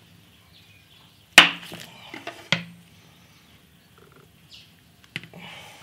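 Kitchen knife chopping through cheese onto a wooden cutting board: one sharp knock about a second and a half in, two lighter knocks about a second later, and a couple of faint clicks near the end.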